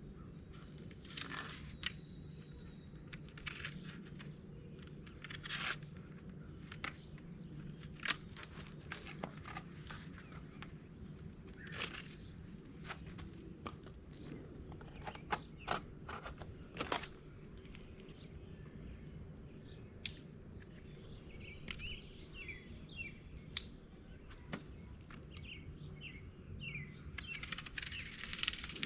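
Scattered clicks, crunches and crinkles of hands working outdoors, with birds chirping between them and a steady low hum underneath.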